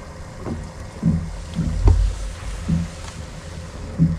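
Irregular low thumps and knocks about a small fishing boat, about six in four seconds, over a steady rush of wind and water.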